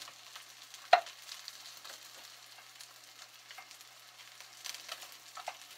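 Fingers pressing and patting wet shredded raw potato onto a salmon fillet: a faint, soft crackling and squishing, with one sharp click about a second in.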